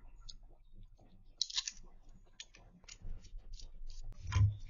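Light clicks and clatter of the GEPRC Mark 5's carbon-fibre frame parts and small screws being handled and fitted with a hex screwdriver. There is a brief scratchy noise about a second and a half in, and a louder dull knock near the end.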